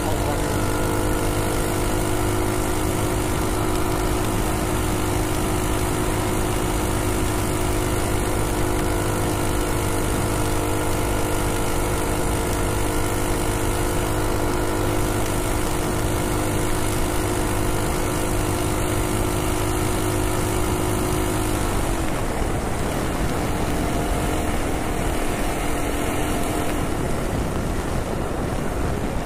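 Minibike's Predator Ghost 212cc single-cylinder engine, driving through a Jugg-A-Verter torque converter, running steadily at high throttle at around 52–55 mph, with wind and road rush. About 22 s in the engine note drops as the throttle is let off and the bike slows.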